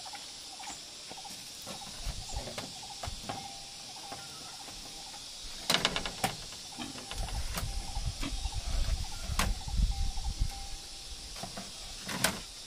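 Woven bamboo wall panel rattling and knocking against a bamboo frame as it is handled into place, with sharp clacks about six seconds in, again about nine seconds in and near the end. Insects chirp steadily behind.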